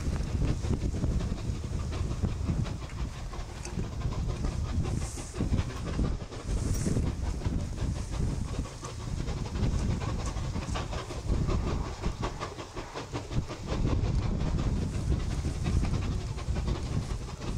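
Two QJ-class 2-10-2 steam locomotives working hard upgrade, double-heading a freight train: their exhaust beats chuff out fast and overlapping in an uneven rhythm over a heavy low rumble.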